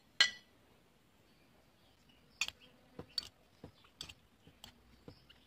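A sharp clink just after the start as the dish of cha-om shoots meets the enamel bowl, then, from about two and a half seconds in, a spoon tapping and clicking irregularly against the enamel bowl while cha-om shoots are stirred into beaten egg.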